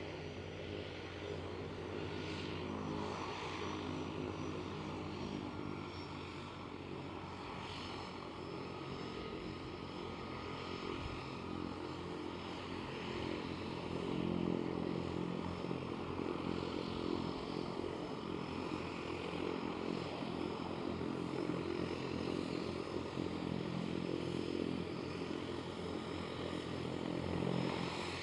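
De Havilland DHC-3 Otter floatplane's engine and propeller running with a steady drone, getting louder about halfway through and again near the end.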